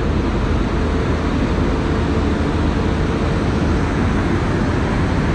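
Steady, loud machinery drone of a passenger train standing at a platform: a low hum under a broad, even rushing noise.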